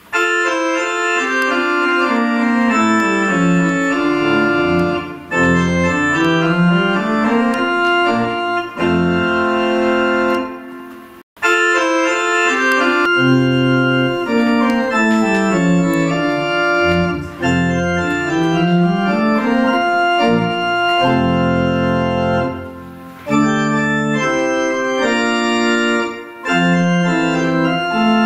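Church pipe organ playing a piece of sustained chords over flowing, rising and falling lines in the lower voices. The music drops out for a moment about eleven seconds in, then carries on.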